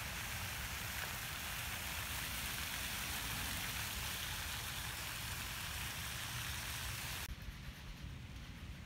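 Steady hiss of running water, dropping to a quieter, duller hush about seven seconds in.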